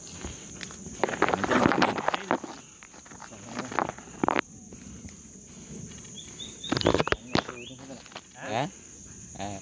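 Dry branches and leaf litter rustling and crackling, loudest between one and two seconds in, with a few sharp cracks later. A steady high-pitched insect drone runs underneath.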